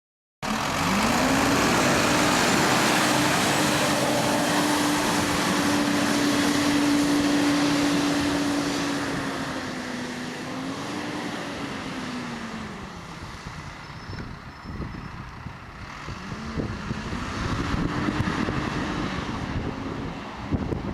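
Volvo B9TL double-decker bus's engine cooling fan running loud with a vacuum-cleaner-like whine over a rushing of air. It spins up about a second in, holds steady, winds down around the middle, then spins up again near the end.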